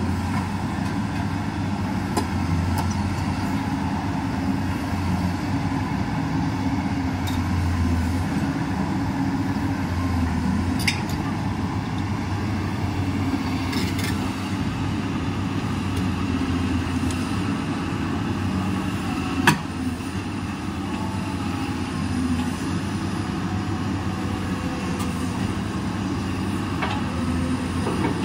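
Komatsu PC200 crawler excavator's diesel engine running steadily under load as the machine travels on its steel tracks, with a few sharp metallic clanks, the loudest about two-thirds through.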